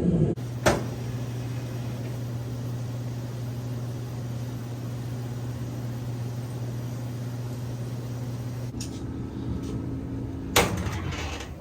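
Electric clothes dryer running after a new heating element was fitted, a steady motor hum with a single click early on. A second, higher hum joins near the end, just before a loud knock.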